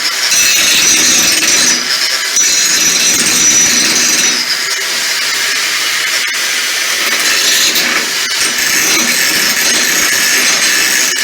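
Electric grinder grinding steel, taking off a piece that was welded on. It makes a loud, continuous shrill grinding noise with a high whine that comes and goes as the disc bears on the metal.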